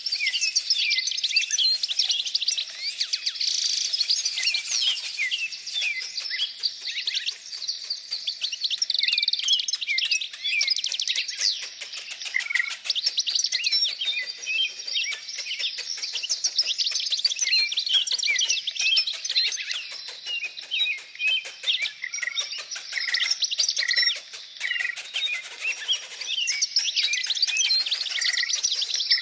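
Many small birds chirping and twittering at once, a dense unbroken chorus of short high calls and trills.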